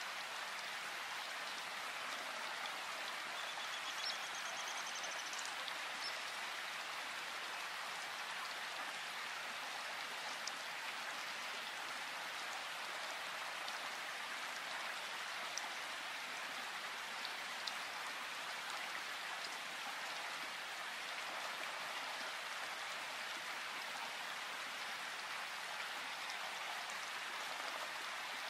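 Steady rain falling in a forest: an even hiss with a few louder single drips standing out.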